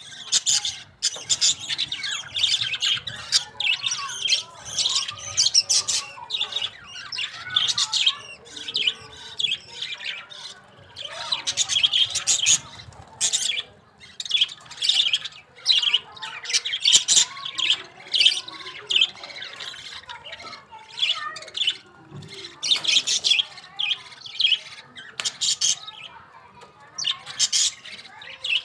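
Budgerigars chattering: a steady stream of short, high chirps with no break.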